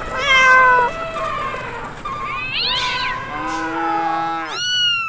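A cat meowing several times, one call after another, the last a long falling meow that starts near the end.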